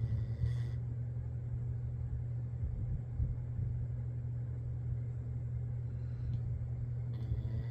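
Low, rumbling snoring, a steady drone with slight swells every few seconds.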